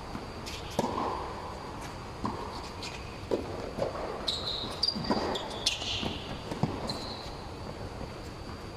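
Tennis rally on a hard indoor court: a string of racquet-on-ball hits and ball bounces, about seven sharp knocks, with a few brief sneaker squeaks in the middle and near the end, ringing a little in the large air-supported dome.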